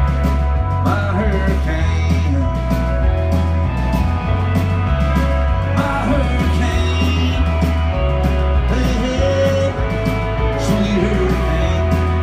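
Live alt-country rock band playing an instrumental passage: electric guitars with bent notes over a steady bass line and drums.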